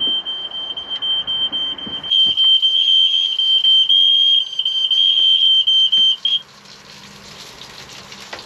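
Smoke alarm sounding one loud, continuous high-pitched tone, set off by burgers burning in the frying pan. It grows louder about two seconds in and cuts off about six seconds in.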